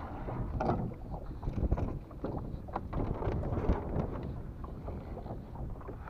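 Wind buffeting the microphone over the low rumble of a small boat on the water, with irregular knocks and rubbing as a rope is hauled in hand over hand over the side and coiled into the boat.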